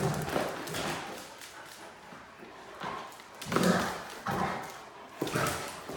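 Great Danes and other dogs playing rough on a tile floor: paws and claws clattering and thudding, with a few short barks, the loudest a little past the middle.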